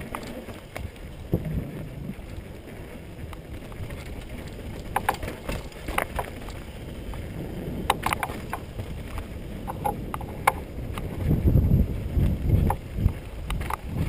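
Mountain bike descending a dirt downhill trail at speed: tyres rolling over dirt and rocks with a steady rough rumble, broken by sharp clacks and rattles from the bike over bumps. The rumble grows heavier about eleven seconds in.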